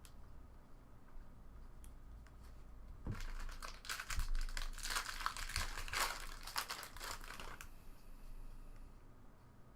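Plastic trading-card pack wrapper crinkling as it is torn open and handled, in a dense stretch of crackling from about three seconds in until near eight seconds, with lighter rustles either side.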